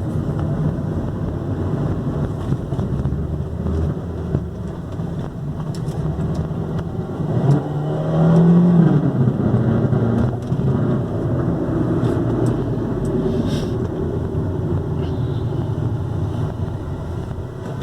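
Ford Focus 2.0 Duratec engine running with a rattle like a tin can banging, the revs rising about eight seconds in, where it is loudest. The noise is the sign of a broken engine mount letting metal rub on metal.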